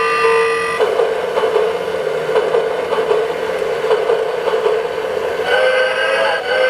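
Lionel anniversary alarm clock sounding its train-themed alarm: a held train whistle ends about a second in, then a steady clatter of a train running, with the whistle blowing again near the end.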